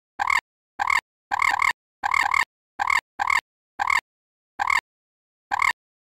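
Eurasian coot giving a series of short, sharp squawks, about a dozen in under six seconds, some coming in quick pairs, with pauses between them.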